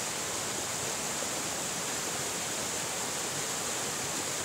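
Muddy floodwater from heavy rain rushing and churning over stones in a swollen stream, a steady, unbroken rush of water.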